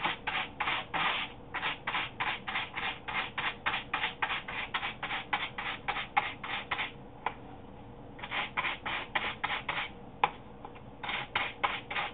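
A small cleaning brush scrubbed back and forth along the pleats of a dry Hoover WindTunnel vacuum filter, in brisk scratchy strokes about four a second. The scrubbing stops twice for about a second, with a single tap in each gap.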